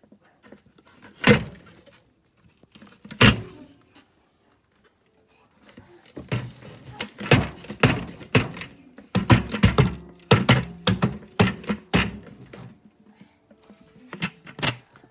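Hollow plastic knocks and thunks from a Dyson Ball Animal 2 upright vacuum being handled: two single knocks, then a quick run of clunks and clicks, then two more near the end. The motor is not running.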